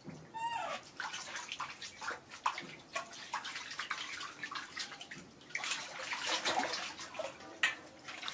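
Water splashing and sloshing in a large stainless-steel basin as a baby monkey swims and paddles in it, in irregular splashes that grow busier and louder in the second half.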